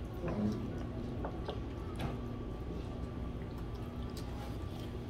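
Light, scattered clicks of chopsticks and tableware over a steady low hum of the room, with a brief low sound about half a second in.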